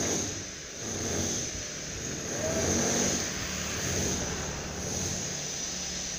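Road traffic: vehicle engines passing by, the rumble swelling and fading several times over a steady high hiss.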